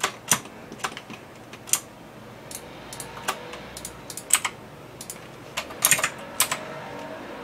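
Computer keyboard keys clicking in scattered, irregular strokes, with a quick run of several about six seconds in.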